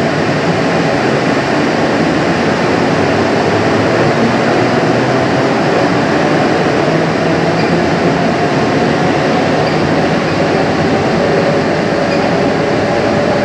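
Bombardier Innovia APM 100 people-mover car running steadily along its guideway, heard from inside the car: a steady rumble of rubber tyres on the concrete track with a faint electric motor whine.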